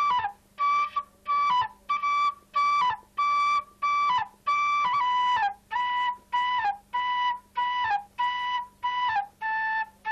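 Background music: a solo flute-like wind instrument playing a slow melody of separate held notes, each ending with a short downward slide, the melody stepping lower as it goes.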